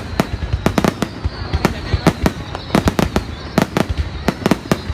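Fireworks going off in a dense, irregular barrage of sharp bangs and cracks, about four a second, over a continuous low rumble.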